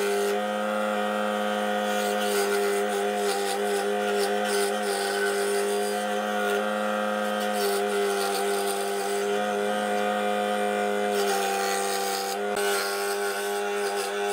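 Luxter benchtop scroll saw running with a steady hum, its blade cutting through a small piece of thin wood.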